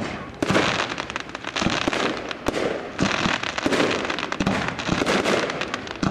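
Fireworks going off in a dense string of sharp bangs and popping over continuous crackling, with fresh volleys starting about half a second in and again around three seconds in.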